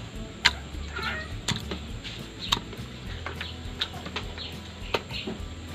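Raw chicken pieces being put into a stainless steel pot, with about five sharp knocks against the metal, roughly one a second.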